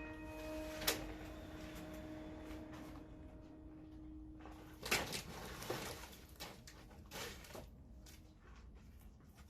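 Scattered sharp knocks and clatters, the loudest about a second in and about five seconds in, while a held note of background music fades out.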